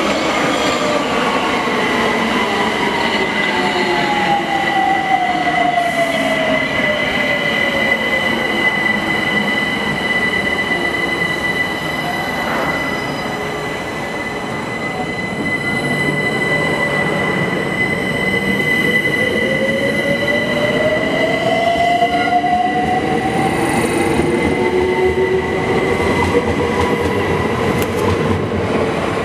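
Class 378 Electrostar electric multiple unit's traction motors whining. The whine falls in pitch as the train brakes to a stand, then rises again as it accelerates away, over a steady high tone.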